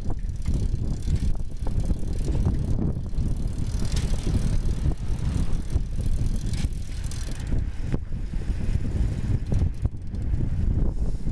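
Bicycle riding along a city street, heard from a camera carried on the bike: a steady low rumbling noise of tyres on the road and wind on the microphone, with a few short knocks and rattles.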